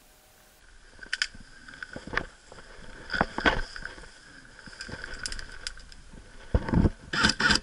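Dry grass and brush rustling and crackling as a person crouches and moves through it, with scattered sharp snaps and a quick run of louder ones near the end.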